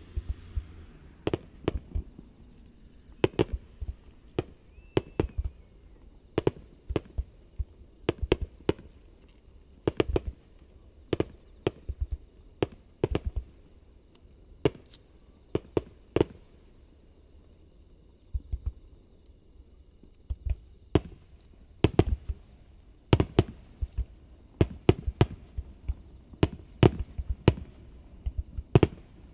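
Aerial firework shells bursting, heard from about 750–800 m away: a long irregular run of separate sharp booms, one or two a second. A steady high insect trill sounds behind them.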